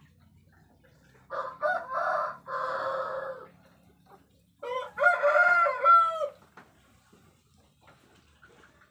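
A rooster crowing twice: a hoarse crow lasting about two seconds, then a louder, clearer crow a second later.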